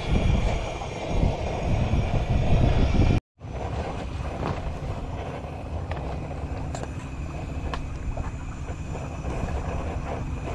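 Strong wind buffeting the microphone in a low, gusty rumble. About three seconds in it cuts off abruptly, and steadier wind noise follows with a few light clinks of a fork stirring noodles in an aluminium saucepan.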